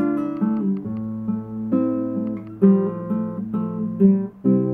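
Nylon-string classical guitar fingerpicked: single plucked notes over held bass notes, then a chord struck near the end that rings on.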